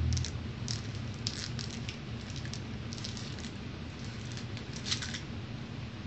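Light clicks and rustles of a glass whisky bottle with a crimped metal cap being handled and turned in the hands, in small clusters, over a steady low hum.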